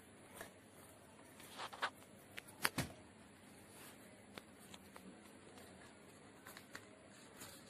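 Origami paper rustling and crinkling faintly as it is folded and creased by hand on a desktop, with a cluster of sharp taps and clicks about two to three seconds in.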